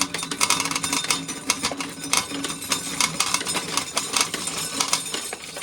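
Corn sheller stripping an ear of corn: a fast, dense rattle of kernels being torn from the cob over a steady hum, leaving the cob shelled clean.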